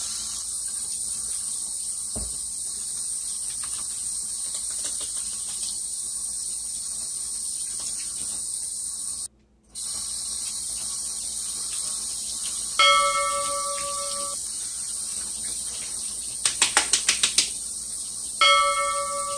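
Steady high hiss, broken by two bell-like dings about five seconds apart, each ringing and fading over a second or so, with a quick run of about eight clicks between them.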